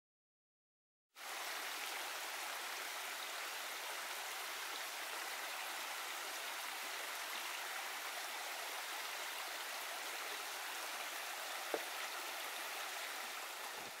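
Shallow rocky creek running steadily: a constant rush of water that starts about a second in, fed by heavy rain from the day before.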